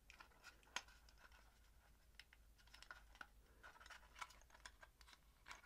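Faint scratching and small irregular clicks of a thin metal shaft being worked through the hull holes of a diecast model tank while fingers press the track down.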